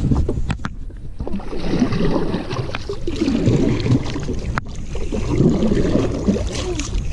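Wooden paddle strokes pulling through the water beside a small boat, a swish and splash about every two seconds, with one sharp click about four and a half seconds in.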